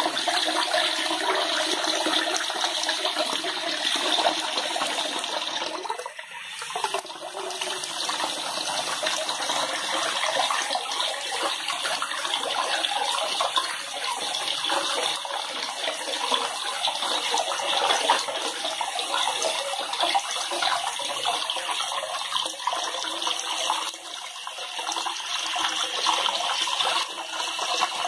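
Tap water pouring in a steady stream into a wash basin already full of water, splashing and bubbling, with a brief dip about six seconds in.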